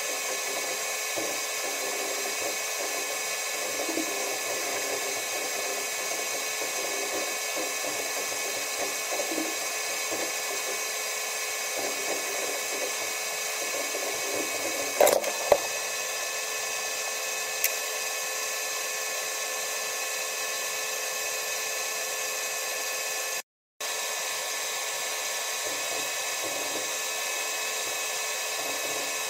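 Steady mechanical whir of a Soyuz spacecraft cabin's ventilation and onboard equipment, with several steady whining tones. A few sharp clicks come about halfway through, and the sound cuts out for a moment near the end.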